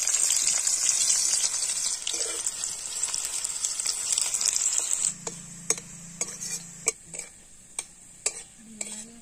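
Sliced onions sizzling in hot oil in an aluminium kadai while a metal spatula stirs them. About five seconds in the sizzle drops away, and the spatula clicks and scrapes against the pan several times.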